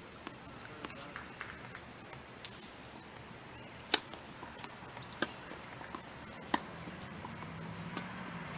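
Tennis ball impacts: three sharp knocks about a second and a quarter apart, the first the loudest, with fainter taps between, over a faint hiss. A low hum comes in near the end.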